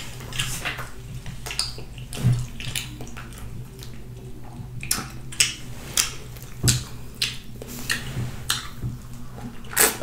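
Wet, open-mouthed smacking and chewing while eating sauce-covered chicken close to the microphone, with irregular sharp smacks and sucking at the fingers. A low steady hum runs underneath.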